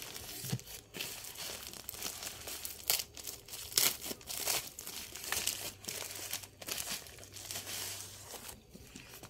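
Plastic courier mailer crinkling and rustling in irregular crackles as it is handled and pulled open, with a few sharper crackles about three to four seconds in.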